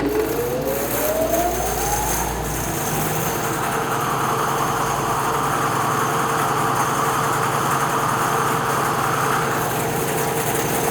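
Resaw power feeder on a bandsaw started and running: its whine rises as the motor spins up over about two seconds, then runs steadily together with the saw's constant hum.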